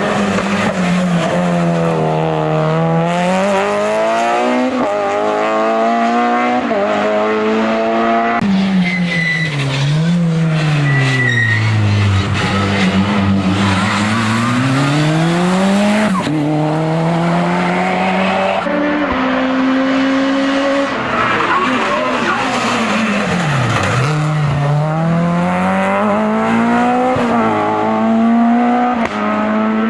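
Racing car engine on a hill-climb run, revving up through the gears with quick shifts. Several times the pitch drops in long sweeps as it slows for bends, then it climbs again.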